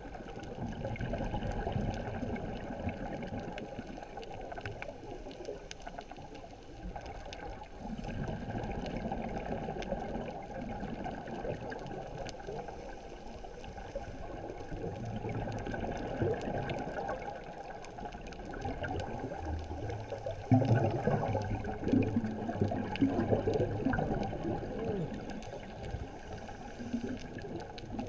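Underwater ambience heard through a camera's waterproof housing: a muffled rushing water noise that swells and fades every few seconds, loudest about twenty seconds in.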